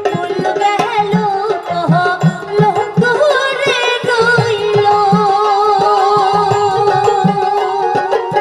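Live Bengali Bhawaiya folk song: a woman singing with a bamboo flute and dotara accompaniment, over a hand drum playing a steady beat.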